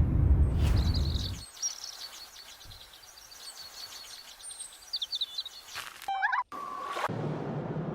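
A string of separate ambient sound-effect clips. A low rumble fades out in the first second and a half, high rapid bird chirping runs until nearly 6 s, a short burst of lower chirps and a brief steady tone follow, and about 7 s in it cuts to a steady low hum.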